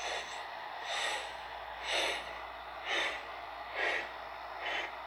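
A person breathing out in short, breathy huffs close to the microphone, about one a second.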